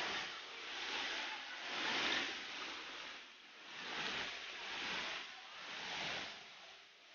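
Fast-flowing mountain stream rushing over rocks, its noise swelling and fading about once a second.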